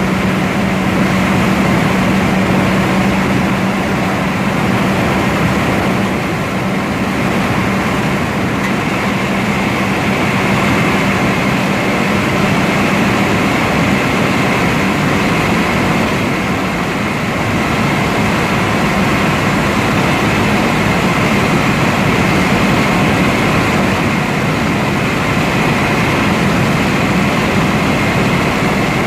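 1987 Chevy driving at a steady speed: engine and road noise, with a steady low engine drone that fades into the road noise after about twelve seconds.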